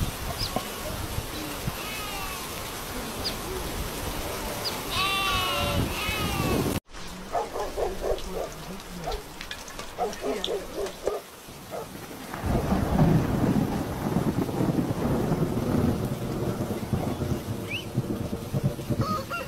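Rain falling steadily, with a loud low rumble building up from past the middle.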